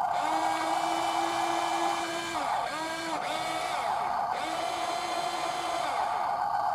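Electric motors and gear drives of radio-controlled model trucks whining steadily, their pitch rising, holding and falling again several times as the throttle is worked.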